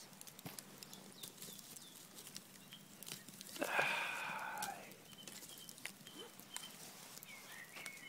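Wood campfire crackling, with frequent sharp pops and snaps. About four seconds in, a louder harsh animal call lasting about a second, falling in pitch.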